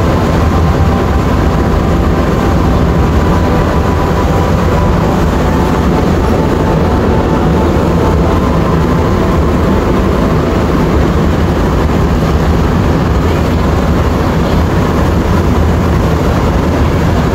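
Montreal metro rubber-tyred train running steadily through a tunnel, heard from inside the car: a loud, even rumble with a faint steady whine above it.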